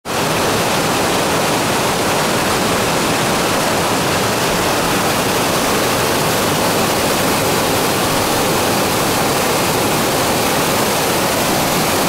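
Waterfall: whitewater cascading over rock slabs, a steady, loud rush of water.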